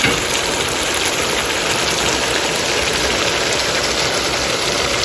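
Chicken jalfrezi gravy with onion and capsicum sizzling and bubbling steadily in a wok.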